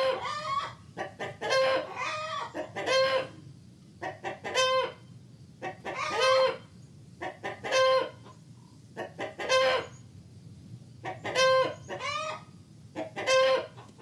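A chicken cackling: a call repeated about every one and a half to two seconds, each a quick run of short clucks ending in a longer drawn-out note.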